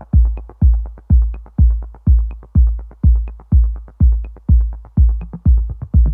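Electronic dance music: a steady four-on-the-floor kick drum about twice a second, with ticking hi-hats between the kicks.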